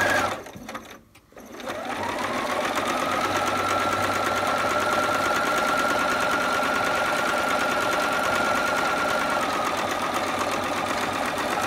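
Electric sewing machine stitching a seam: it stops for about a second just after the start, then starts again, its motor whine rising in pitch as it speeds up and then running steadily, easing slightly near the end.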